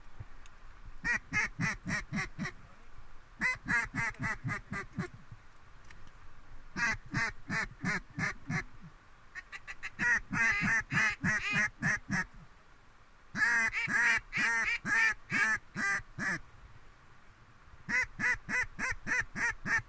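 Acrylic double-reed mallard duck call (Haydel's H2 Cajun Cutter) blown in six runs of quick, evenly spaced quacks, about six to eight a second, with short pauses between runs. The run near the middle is faster and denser than the others.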